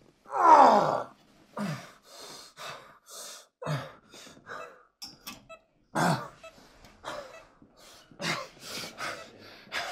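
A man gasping and breathing hard in distress: a loud groaning cry that falls in pitch about half a second in, then a string of short, ragged gasps and breaths.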